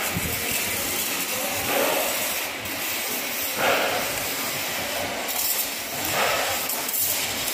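Steady hiss with a louder scraping swell about every two seconds, as pliers twist the wire lock around the rubber boot of a steering rack.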